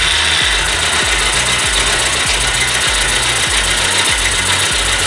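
Bajaj Pulsar single-cylinder engine idling with its timing-chain tensioner cap bolt removed, and a steady hiss of air blowing out of the open adjuster port over the running engine.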